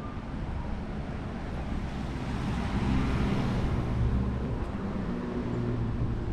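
A motor vehicle passing close by on a city street: a low engine hum with tyre noise that swells to a peak about halfway through and then eases off.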